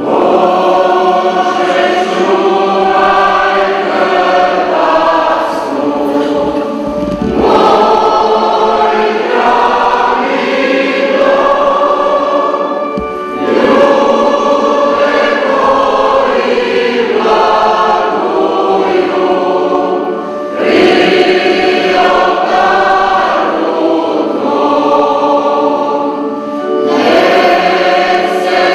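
Mixed church choir of men and women singing together in several parts, in long sustained phrases with brief breaks between them.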